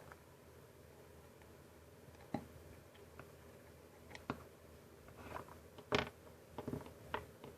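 Slime being squeezed and pressed by hand, giving scattered soft sticky clicks and squelches, the loudest about six seconds in.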